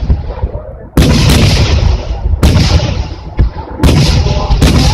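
Aerial firework shells bursting overhead: four loud booms, each trailing off in a long low rumble.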